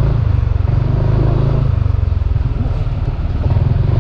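Motorcycle engine running at low town speed, heard as a steady low rumble with wind noise on the microphone. It eases off slightly around the middle and then picks up again.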